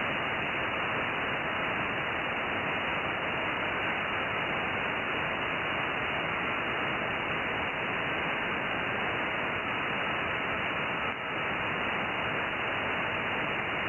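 Steady receiver hiss from a Perseus SDR in sideband mode, fed by a 144 MHz downconverter on a moonbounce frequency. The receive filter cuts the noise off above about 3 kHz. A weak JT65 moonbounce signal sits in the hiss as faint tones, and there is a brief dip about eleven seconds in.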